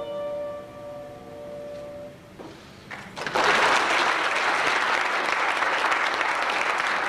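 A chord on a grand piano rings and fades away over about two seconds. Then audience applause breaks out about three seconds in and keeps going.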